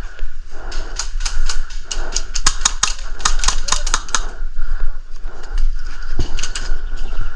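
Airsoft guns firing: a series of sharp snapping shots, scattered at first, then rapid runs of about ten a second in the middle, with a short burst again near the end.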